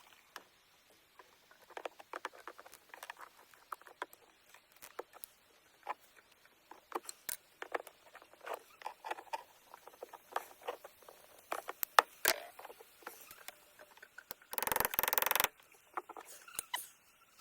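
Irregular light clicks, crackles and scrapes of hands and tools working on the opened beehive, with a louder rustling burst lasting about a second, about fifteen seconds in.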